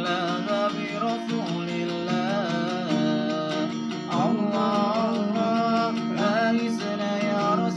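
A man singing a sholawat, an Islamic devotional song, in a wavering, ornamented vocal line while strumming chords on an acoustic guitar.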